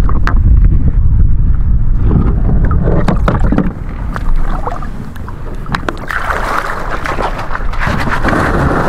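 Wind buffeting the microphone in a heavy low rumble, with scattered knocks of gear against a plastic kayak hull. About six seconds in, a rougher hiss sets in.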